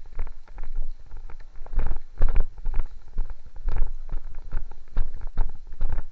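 Hurried footsteps: an irregular run of heavy thuds and knocks, strongest in the low end.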